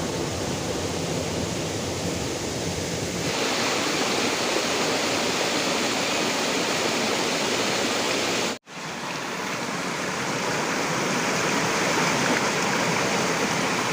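Waterfall: a steady rush of falling water, broken by a brief dropout about two-thirds of the way through.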